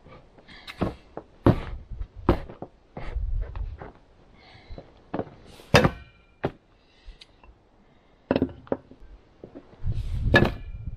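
A boot kicking and stamping on a long steel bar fitted to a grader's wheel nut, to loosen the nut: a series of irregular thunks and clanks. The strike about six seconds in is the loudest and gives a short metallic ring.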